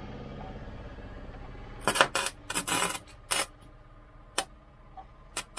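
Sharp electrical clicks and clacks in a quick run about two seconds in, over a steady low hum, then two faint clicks. This is the starter circuit of a Cummins bus engine being tried while the starter motor fails to turn, a fault put down to the starter motor's brushes.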